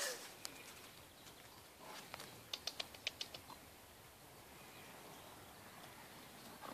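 Mostly quiet background with a faint, short whine from an Alaskan Malamute puppy right at the start. Between two and a half and three and a half seconds in comes a quick run of about seven light clicks.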